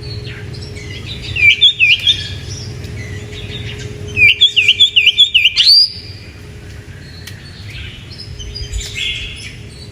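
Oriental magpie-robin (kacer) singing: two bursts of rapid, looping whistled notes, about a second and a half in and again around four seconds in, the second ending in a rising whistle, then softer notes near the end. A faint steady hum runs underneath.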